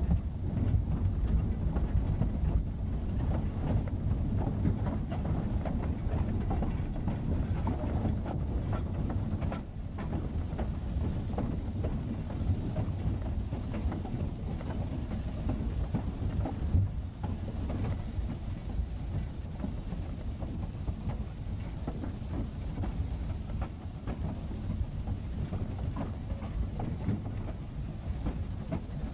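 East Broad Top steam locomotive No. 15 and its train running, heard from just behind the tender: a steady rumble with the clatter of wheels on the rails.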